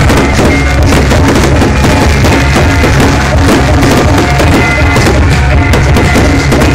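Fireworks display: a constant barrage of bursting shells and crackling, with a continuous deep drum-like booming, so loud that the recording is overloaded and distorted.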